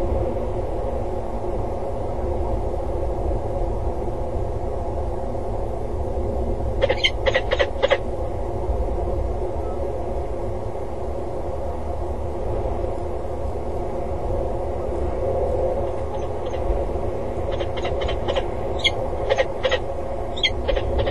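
Peregrine falcons calling in short runs of quick repeated notes: a burst of about six calls some seven seconds in, and a looser series near the end. Underneath is a steady low rumble with a hum.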